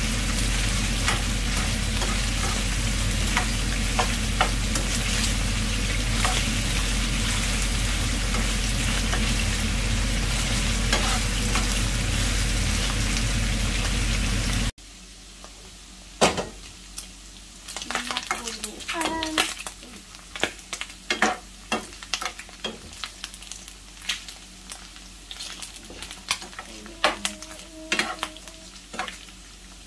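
Pork chunks sizzling as they fry in a nonstick frying pan, stirred with a metal spoon. A loud, steady sizzle for about the first half cuts off suddenly to a quieter sizzle, with frequent clicks and scrapes of the spoon against the pan.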